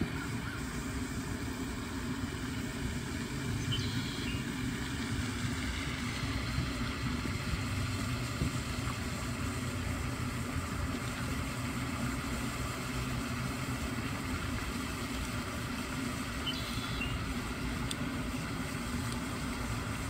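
Steady low hum of a running motor vehicle, unchanging throughout, with two brief faint high chirps, one about four seconds in and one near the end.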